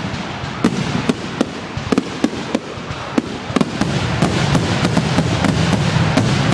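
Fireworks display going off in a rapid series of sharp bangs over a continuous rumble. It thickens into a dense barrage from about four seconds in.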